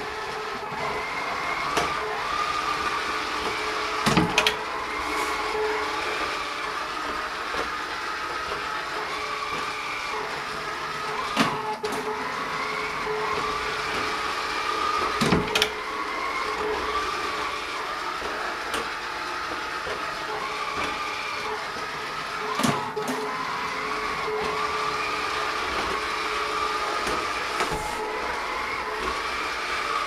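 HomeHero robot vacuum running on a tiled floor: a steady motor hum with a faintly wavering whine, broken by a few sharp knocks as its bumper strikes the wall. It is low on charge and hunting for its charging base.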